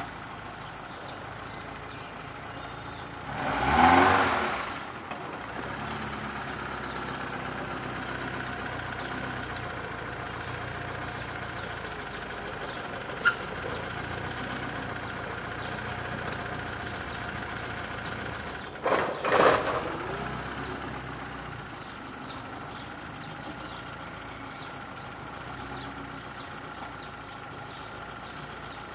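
A car engine idling on a street, with a steady hum underneath. There are two loud vehicle swells that rise and fade, one about four seconds in and one near nineteen seconds, and a single sharp click near the middle.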